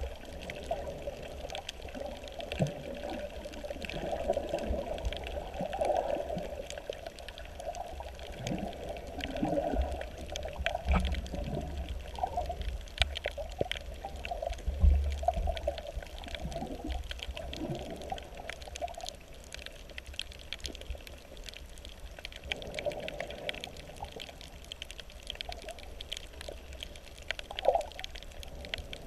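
Water sloshing and gurgling around a camera held underwater, with scattered clicks throughout.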